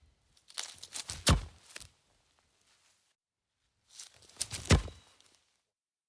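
Two short bursts of quick scuffing footsteps, each ending in a sharp thud of a foot kicking a football: the first thud about a second in, the second near five seconds, with silence between.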